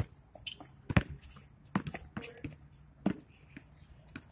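A basketball bouncing on an outdoor hard court: a few irregularly spaced thumps, the loudest about a second in.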